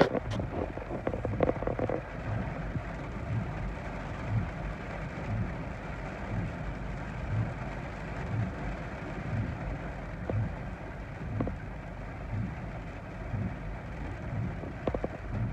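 Heavy thunderstorm rain falling on a car, heard from inside the cabin, with soft low thuds about once a second from the windshield wipers. There are a few knocks in the first two seconds.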